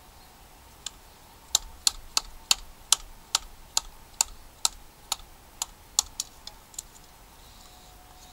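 Wooden baton striking the spine of a Condor Bushlore knife, about sixteen sharp knocks at two to three a second, batoning the blade down through a stick stood on a chopping block to split it. The last few strikes are lighter.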